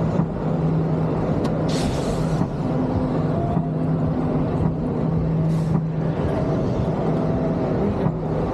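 Roller coaster machinery: a steady low hum with two short hisses of compressed air, like pneumatic brakes or restraints venting, the first about two seconds in and a shorter one past the middle.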